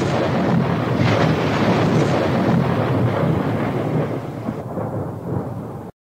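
Ocean surf: a steady rush and rumble of waves breaking, swelling a couple of times and cutting off suddenly near the end.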